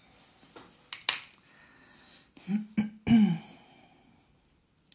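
Two light clicks about a second in, as drawing tools are handled on the desk. Then, near three seconds in, a short vocal sound and a throat-clear, the loudest thing heard.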